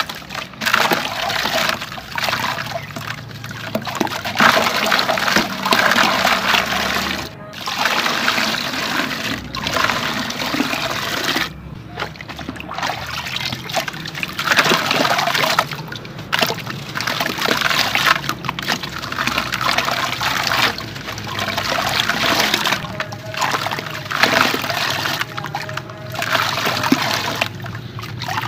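Water sloshing and trickling as hands squeeze and break apart a soaked sand-cement lump in a plastic bucket of water, with gritty crumbling as pieces fall back into the water. It comes in handfuls, with short pauses between squeezes.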